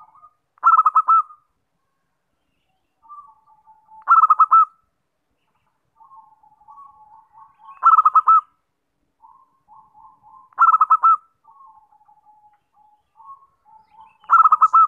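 Zebra dove (perkutut) singing: five loud phrases of quick, rolling cooing notes, about one every three and a half seconds, with softer, lower runs of notes in between.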